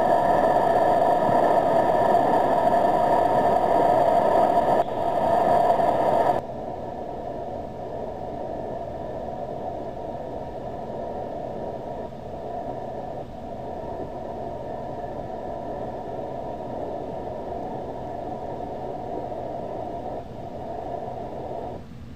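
Post-fire flash flood on a burn scar: muddy floodwater carrying debris rushes through a wooded gulch as a steady, churning noise. It is loud for about the first six seconds, then drops to a quieter steady rush.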